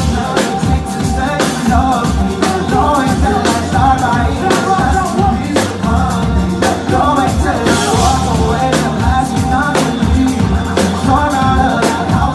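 Loud music with a steady drum beat and a vocal line over it.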